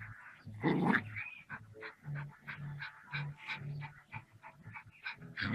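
Small dog panting quickly, with a louder burst about a second in.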